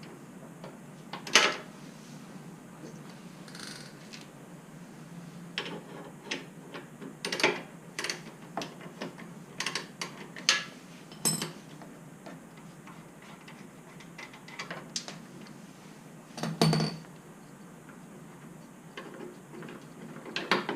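Scattered metallic clinks and knocks of hand tools and motorcycle parts being handled during work on the bike, with a louder knock about a second in and another near the end.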